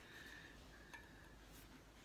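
Near silence: workshop room tone with a faint steady high hum and one light tick about a second in.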